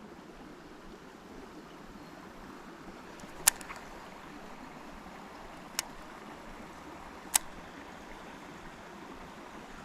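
Three sharp clicks, the first about three and a half seconds in and the other two over the next four seconds, over a steady faint background hiss.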